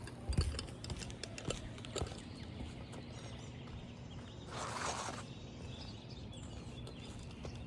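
Quiet outdoor background with faint bird chirps and scattered light clicks. About four and a half seconds in, a brief rustling scrape lasts about half a second.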